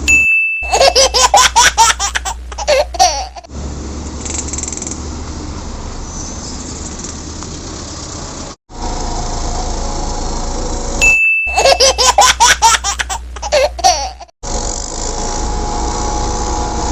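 A short ding and then about three seconds of a child's laughter sound effect. The same ding and laughter repeat unchanged about eleven seconds in, over a steady low background hum.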